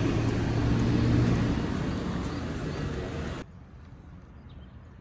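Steady vehicle-like noise, a low hum under a wide hiss, that cuts off abruptly about three and a half seconds in, leaving faint background sound.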